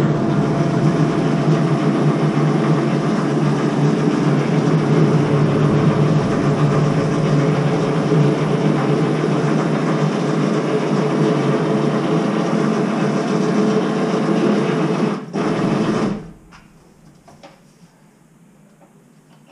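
Two-post vehicle lift's electric motor running steadily as it raises a car body shell off its chassis. It stops briefly near the end, runs again for a moment, then cuts off.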